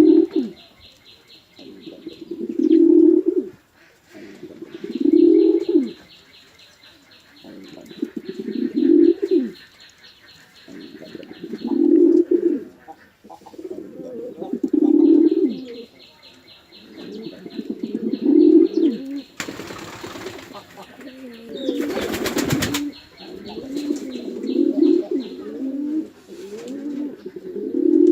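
Domestic pigeon cooing over and over, one low rising-and-falling coo about every three seconds. Two short bursts of wing flapping come about two-thirds of the way through. A faint, high, rapid ticking runs underneath at times.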